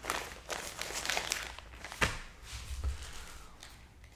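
Packaging being handled during an unboxing: rustling with a run of small clicks and knocks, one sharper click about two seconds in.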